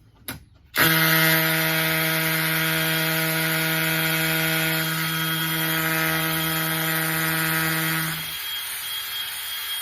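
Hammer drill in hammer mode boring into concrete with a masonry bit, starting about a second in and running steadily; near the end its pitched hum drops out and it runs on more quietly.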